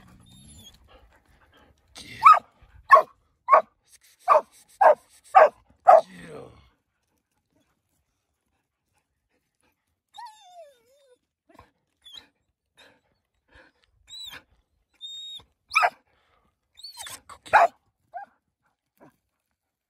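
Canine barking: a quick run of seven sharp barks about two a second, then a pause with a short falling call, and two more barks near the end.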